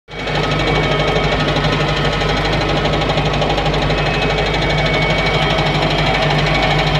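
MTZ (Belarus) tractor diesel engine running steadily with a fast, even mechanical clatter, which the owner suspects may be an engine knock.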